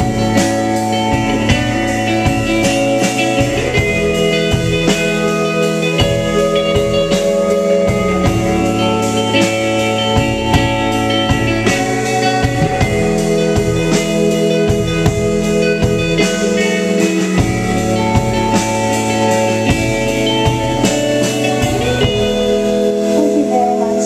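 Live band playing an instrumental passage: electric guitar over a drum kit, with sustained notes throughout.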